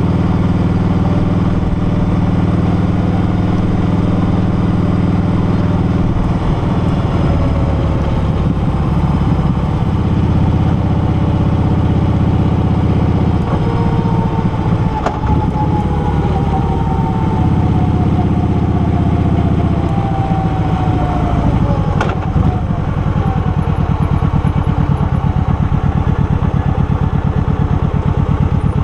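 Motorcycle engine running under way, its pitch changing as the throttle and gears change, with a falling whine midway. A single sharp click follows, then the engine slows to a low, evenly pulsing beat as the bike comes off speed.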